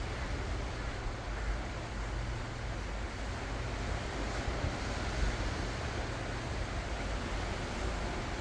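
Ocean waves washing in continuously, an even surf noise, with a steady low rumble underneath from wind on the microphone.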